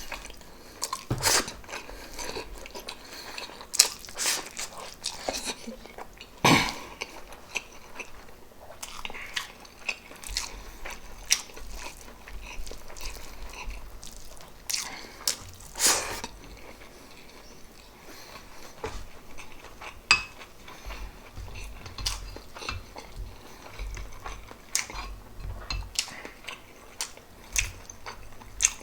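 Close-miked eating of pork adobo and rice: wet chewing, biting and mouth smacks in an irregular run, with now and then a sharper click of a dish or utensil.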